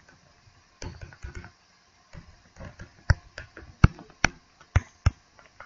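Stylus tapping and clicking on a tablet screen while handwriting: scattered light taps, then about five sharper clicks over the second half.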